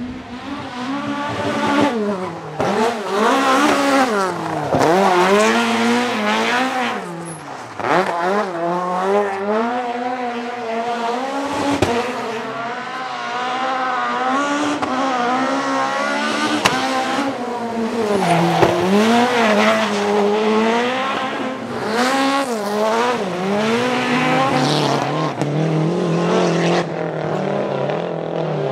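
Alfa Romeo 2.0-litre D2 four-cylinder with individual throttle bodies, in a Fiat 131 rally car, revving hard again and again, its pitch climbing and dropping with each shift and lift. Tyres squeal as the car powerslides.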